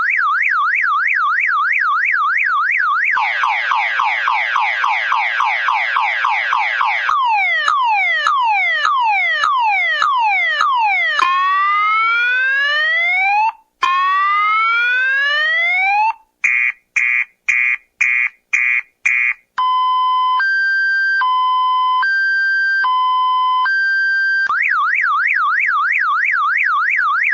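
Electronic alarm siren, loud, cycling through a series of tones: a fast warble, then rapid falling chirps, slower falling sweeps, rising whoops, a run of short beeps, and a two-tone high-low, before returning to the warble near the end.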